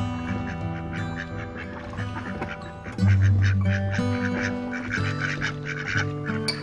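Ducks quacking over and over, with background music of held notes and a steady bass underneath; the music swells about three seconds in.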